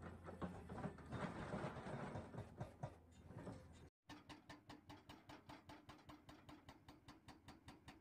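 Excavator-mounted hydraulic breaker hammering rock: irregular blows over a low engine drone, then, after a cut about halfway, steady hammering at about five blows a second.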